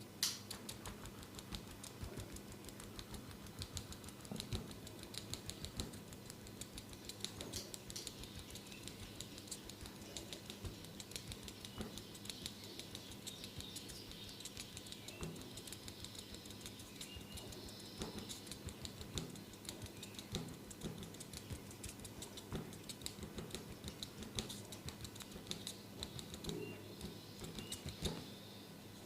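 Tok sen massage: a wooden mallet tapping a wooden stick held against the body, making rapid, light, hard clicks several times a second without a break.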